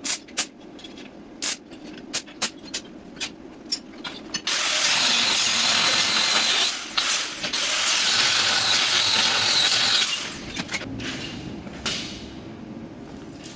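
Sharp metallic clinks and knocks of steel parts being handled, then from about four and a half seconds in a MIG welding arc crackles and hisses steadily for about five seconds, with a short break near seven seconds, before it stops and a few lighter clinks follow.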